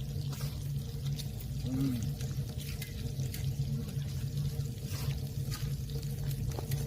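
Pork belly and shrimp sizzling in their fat on a griddle lid set over a homemade gas-cylinder wood stove, with scattered faint crackles over a steady low hum.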